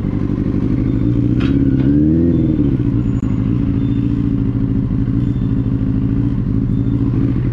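Benelli 600i's inline-four motorcycle engine running steadily, with a brief rise and fall in pitch about two seconds in.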